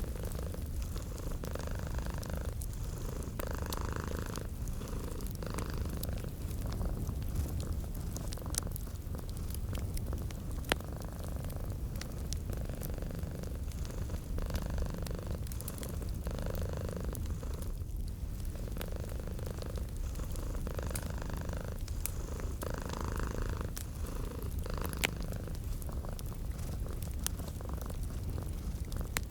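A domestic cat purring steadily, its purr swelling and easing with each breath, over a wood fire crackling with scattered sharp pops.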